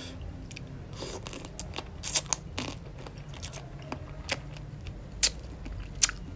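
Close-miked eating of raw crab with papaya salad: irregular crisp crunches, clicks and wet chewing as the crab is bitten and sucked, the loudest crunches about two seconds in and near the end.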